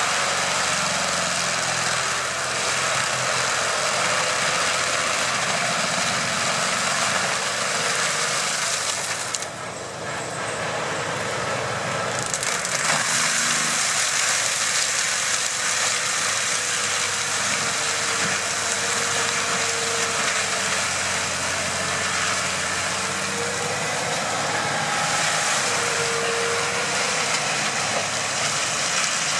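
Tractor-mounted AHWI M650 forestry mulcher grinding brush and topsoil into chips, over the steady running of the Fendt tractor's engine. The sound drops and dulls for a couple of seconds about ten seconds in, then carries on as before.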